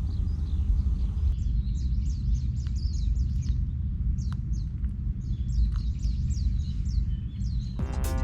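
Small birds chirping, many short high calls in quick succession, over a steady low rumble. Music comes in near the end.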